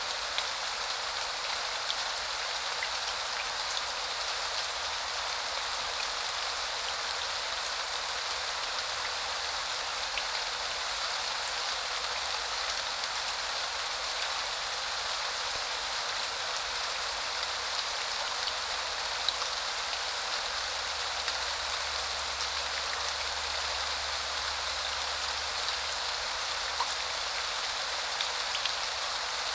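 Steady spring rain falling, an even hiss with scattered individual drops ticking on surfaces.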